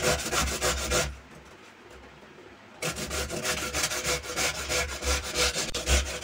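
Peeled raw papaya being grated on a stainless-steel box grater, with quick rasping strokes several times a second. The strokes break off about a second in and start again nearly two seconds later.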